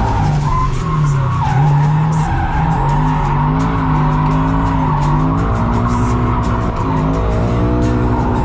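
Toyota GT86's 2.0-litre flat-four engine held high in the revs, its pitch dipping and rising as the throttle is worked through a drift, with the rear tyres squealing steadily. Heard from inside the cabin.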